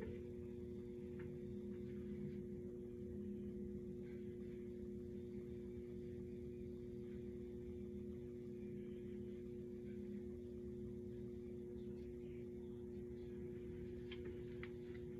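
A steady low hum made of a few fixed tones, with a few faint ticks near the end.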